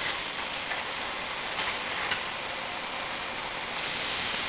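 VFS7300A vertical packaging machine running: a steady hiss with a few faint clicks.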